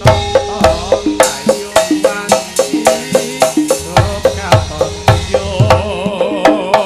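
Javanese gamelan music for tayub dancing: kendang hand drums beat a fast, even pattern over struck metal keyed notes. A singer's wavering, vibrato-laden voice comes in about five seconds in.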